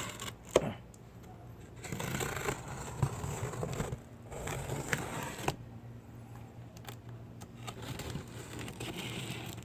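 Packing tape being cut and torn off a cardboard box, with irregular scraping and rustling of the cardboard and a sharp click about half a second in. A faint low hum sits underneath in the second half.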